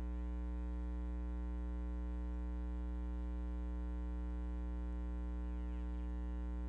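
Steady low electrical mains hum with a buzzy edge, unchanging in pitch and level.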